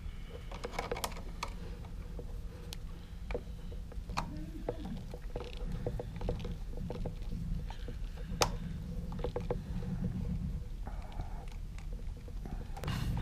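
Scattered light clicks and taps of a screwdriver and needle-nose pliers working the terminal screws and wires of an electrical wall switch, over a low, steady rumble.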